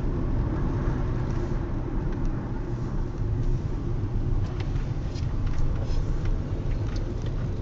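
Steady low rumble of a car driving, heard from inside the cabin: engine and road noise, with a few faint clicks in the second half.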